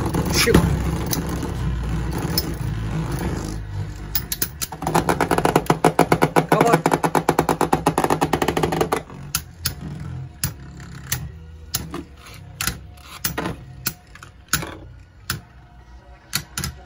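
Two Beyblade spinning tops battling in a plastic stadium. Launch and spin noise comes at the start, then a fast run of clacks from about five to nine seconds in, then single sharp clacks every half second or so as the tops knock together.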